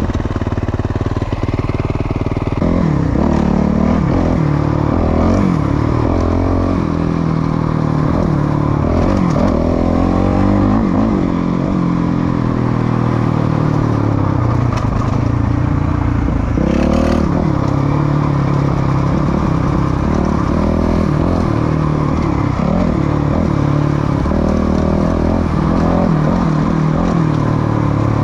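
Suzuki RM-Z450's single-cylinder four-stroke engine through a Yoshimura RS-12 full exhaust, ridden on a dirt trail. It revs up and falls back over and over as the throttle is worked, with a sharp climb in revs about two-thirds of the way through.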